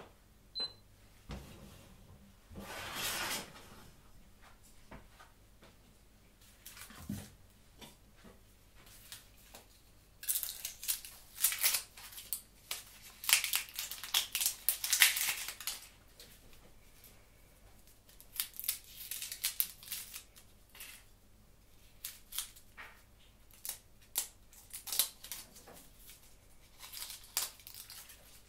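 Kitchen food-prep handling sounds: irregular crinkling, tearing rustles and light clicks and knocks, busiest in two spells through the middle.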